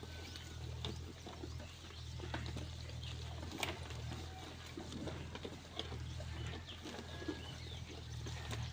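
Sheep eating fodder: scattered small crunching and rustling sounds over a steady low hum.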